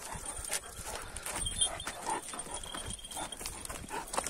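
Footsteps and irregular clinks and knocks while several large Anatolian shepherd dogs are walked on heavy chains.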